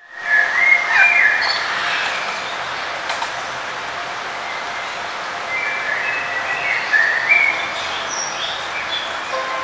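Songbirds chirping and warbling over a steady background hiss, with a flurry of calls in the first second or so and another run of calls about six to eight seconds in.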